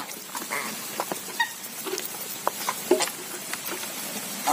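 A flock of white domestic geese feeding from a metal basin of wet mash, their bills dabbling and clattering in quick, irregular clicks, with a few short soft calls among them.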